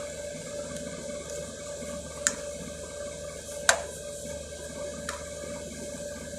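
Water heater's metal access cover being refitted: three sharp clicks about a second and a half apart, the middle one loudest, over a steady hum.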